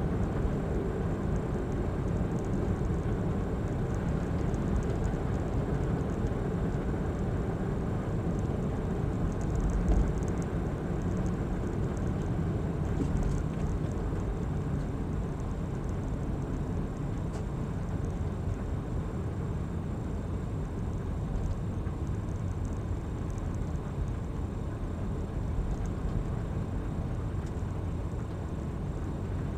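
Steady low engine and tyre rumble of a car driving slowly through town, heard from inside the cabin, with a brief louder thump about ten seconds in.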